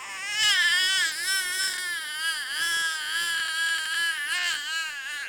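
A young child's voice making one long, high wavering wail, its pitch sliding up and down over and over like a crying or singing noise.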